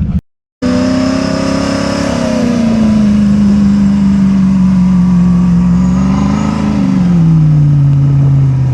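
An off-road vehicle's engine running hard under load. Its pitch sinks slowly, rises briefly a little past six seconds in, then drops to a lower steady note.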